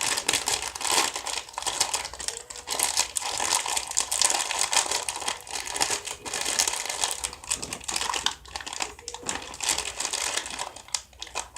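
Plastic snack wrapper being crinkled and handled as it is opened, a continuous dense crackling with sharp crackles throughout that eases off near the end.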